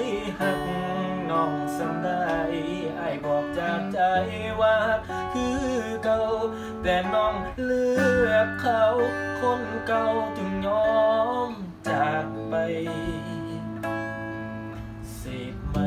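An electric guitar and music in a Thai Isan pop song. Held chords change every few seconds, a bass line comes in about four seconds in, and a wavering, sliding melody line runs on top.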